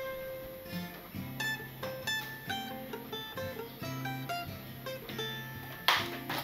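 Background music of plucked acoustic guitar notes, with a short burst of hiss near the end.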